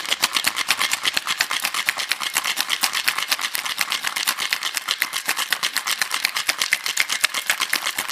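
Ice cubes rattling inside a cocktail shaker as it is shaken hard, a rapid, even clatter of strikes with no break.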